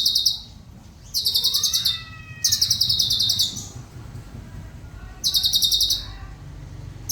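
Cucak cungkok song: a high, rapid rattling trill of about a second, repeated four times with short pauses. Fainter, lower whistled notes slide up and down between the first trills.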